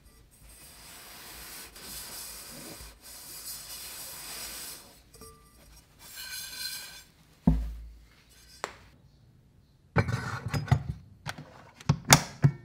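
A cloth rubbing over the outside of a rice cooker's metal inner pot in a steady hiss for several seconds, then in a shorter stretch as the bottom is wiped. A single heavy thud follows as the pot is set down. Near the end come a cluster of knocks and sharp clicks as the pot goes into the cooker and the lid is pressed shut; these clicks are the loudest part.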